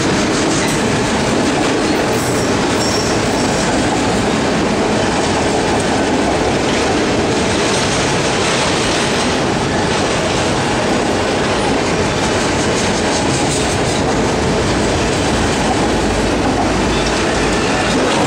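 Enclosed autorack freight cars of a CSX train rolling past close by: a steady, loud rumble of steel wheels on the rails that does not let up.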